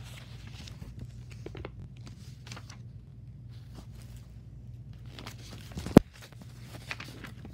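Fluffy white slime being squeezed and pressed into a thin clear plastic container: scattered soft crackles and crinkles, with one sharp plastic click about six seconds in.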